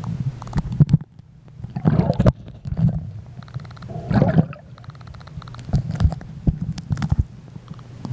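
A camera microphone dipping in and out of swimming-pool water: muffled underwater sloshing and gurgling with knocks and a low hum, and splashy bursts about two and four seconds in as it breaks the surface.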